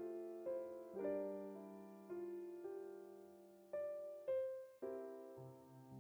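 Gentle background piano music: slow chords and melody notes, each struck and left to fade.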